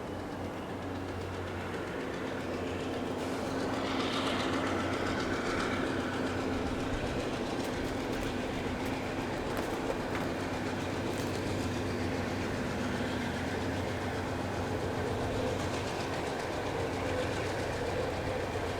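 Freight train rolling by: a steady rumble of wheels on rail with a low drone, and scattered clicks and clacks from the wheels over rail joints.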